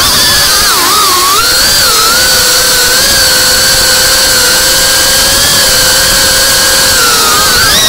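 FPV quadcopter's brushless motors and propellers whining under throttle. The pitch dips and recovers about a second in, holds steady, then shifts again near the end as the throttle changes.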